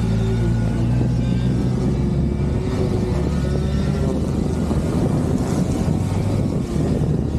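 Kawasaki Versys 1000's inline-four engine running at low road speed with a steady note. Wind noise over the microphone grows in the second half.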